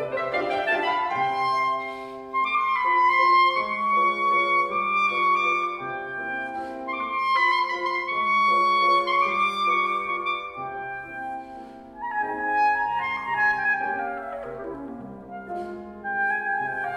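Clarinet and Bösendorfer grand piano playing a classical concert piece: the clarinet holds high notes and plays quick runs, with a fast sweeping run downward about three-quarters of the way through, over repeated piano chords.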